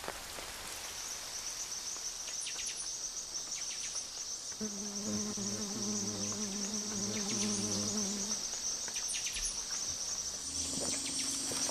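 Rainforest insects, cricket-like, trilling steadily at a high pitch. A low steady hum sounds for about four seconds in the middle.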